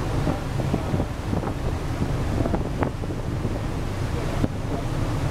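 Wind buffeting the microphone on the deck of a moving ferry, over a steady low rumble and the rush of the sea.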